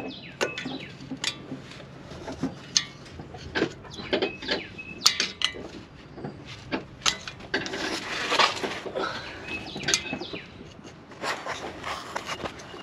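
Irregular small clicks and scrapes of a hand tool prying a sensor wire and its plastic clips free from behind a bracket in a vehicle's front wheel well, with a longer scraping rustle about eight seconds in.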